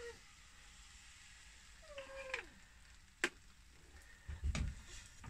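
Small dog whining twice, two short falling whines about two seconds apart, begging at the smell of food. A sharp click about three seconds in and a low knock a second later.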